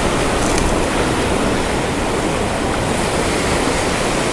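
Ocean surf breaking and washing up a sandy beach: a steady rush of foaming water close by.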